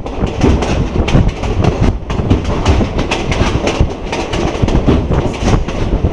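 A passenger train carriage rolling along at speed: a steady rumble and rattle, with quick, irregular clicks and knocks from the wheels running over the track.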